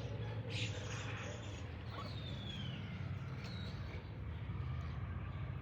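Birds calling, with a short noisy call about half a second in and a thin sliding call about two seconds in, over a steady low rumble.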